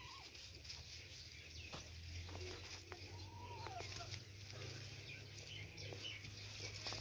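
Faint rustling and crackling of dry straw under two white kittens play-fighting, with one short rising-and-falling animal call a little after three seconds.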